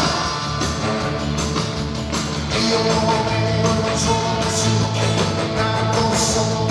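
Live rock band playing, with guitars over bass and drums. The band gets louder about two and a half seconds in.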